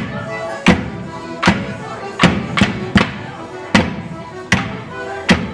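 A Border morris dance tune played on instruments with steady held notes, cut by loud, sharp percussive strikes on the beat about every three quarters of a second, with one extra strike between beats near the middle.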